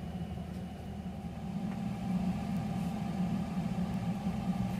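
Steady low hum of room background noise, a little louder from about two seconds in.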